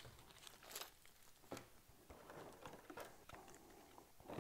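Near silence, with a few faint scattered clicks and rustles of small parts and packaging being handled.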